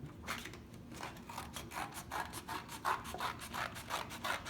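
Scissors cutting through a paper plate, with a run of short, rough snips at about three a second.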